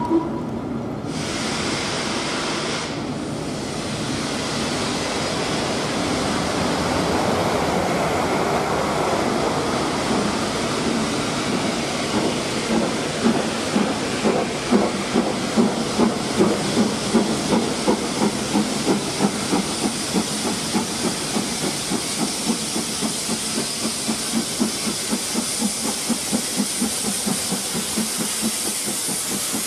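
Two LMS Black 5 4-6-0 steam locomotives pulling away from a stand: a steady hiss of steam that builds, then rhythmic exhaust chuffs from about twelve seconds in, coming quicker as the engines gather speed.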